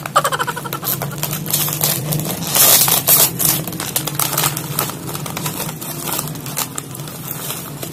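Plastic snack bag crinkling and crackling in the hands as it is opened, a dense run of rustles with louder bursts around the middle.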